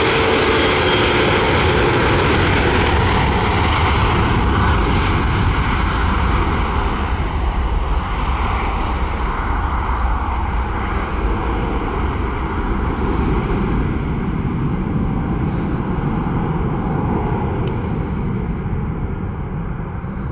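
Airbus A320-232's two IAE V2500 turbofan engines at takeoff thrust, a loud jet roar as the airliner races down the runway, lifts off and climbs away. The high hiss fades out after the first few seconds, leaving a low rumble that slowly grows quieter.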